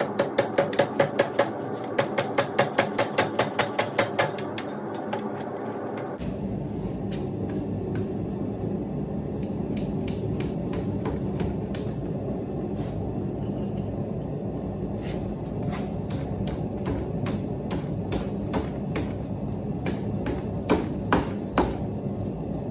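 Hand hammer striking hot tool steel on an anvil, bending down the flattened ends of a forged door handle: a quick run of ringing blows for the first four seconds or so, then, over a steady background noise, scattered single blows later on.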